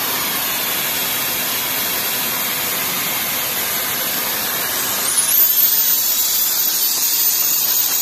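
Refrigerant hissing steadily out through a service hose from an air conditioner's outdoor unit, vented to empty the system before the compressor is replaced. A thin high whistle rises in about five seconds in and holds.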